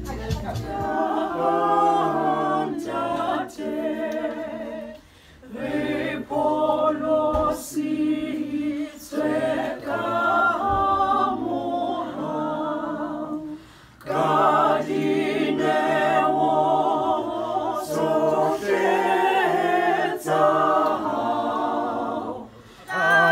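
Unaccompanied choir singing in several voices, with a low bass part, in phrases a few seconds long separated by short breaks.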